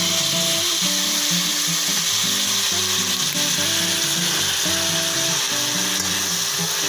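Pork tenderloin strips and sliced onion sizzling steadily in hot oil with soy sauce just poured in, stirred with a fork. Background music plays underneath.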